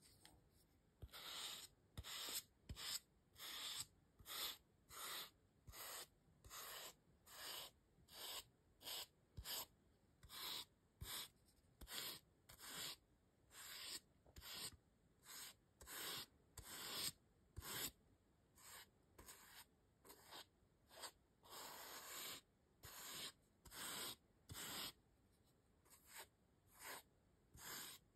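Brush strokes over a gold-painted styrofoam star: dozens of short, dry swishes, one to two a second, starting about a second in.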